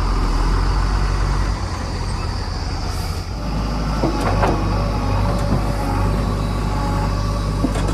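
Heavy diesel engine running steadily. Its low note shifts about a second and a half in and again a little after three seconds. Brief squeals are heard around four seconds in.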